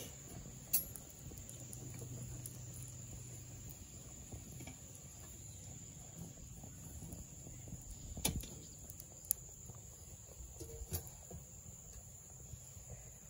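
Simple Theory Gear wood-burning twig stove burning a load of sticks, faint, with a handful of sharp crackles and clicks as the wood burns and sticks are pushed in, the loudest about eight seconds in.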